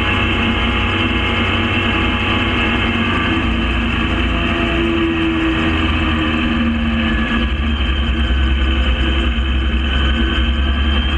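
Gyrocopter's engine and propeller running steadily, with slight shifts in pitch.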